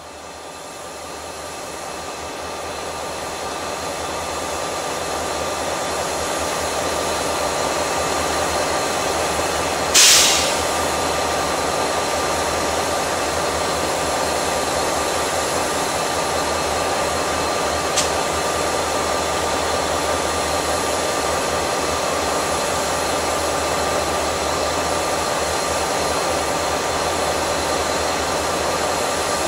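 Diesel-electric freight locomotives running, a steady drone with a faint high whine, swelling over the first few seconds. About ten seconds in, a short, loud blast of air hiss from the locomotives' air system.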